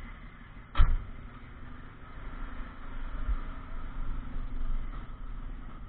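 2019 DAF truck's diesel engine running, heard inside the cab as the truck moves slowly, getting a little louder for a couple of seconds in the middle. A single sharp knock sounds just under a second in.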